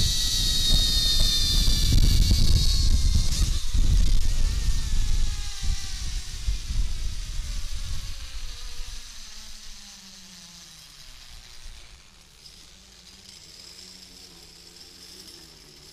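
Zipline trolley pulleys running along a steel cable, giving a high whine that falls steadily in pitch as the rider slows. Heavy wind noise buffets the microphone at first and dies away about halfway through.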